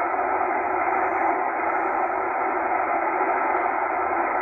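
Tecsun H-501X shortwave receiver in upper sideband giving a steady static hiss while it is tuned across empty frequencies around 8.8 MHz, its top cut off by the narrow sideband filter.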